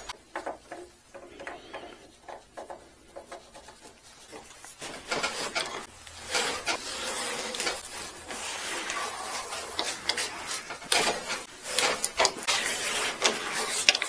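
Pipe tap being turned by hand into a drilled hole in cast iron, scraping and clicking as it cuts threads. It is faint for the first few seconds, then from about five seconds in comes a run of rasping strokes.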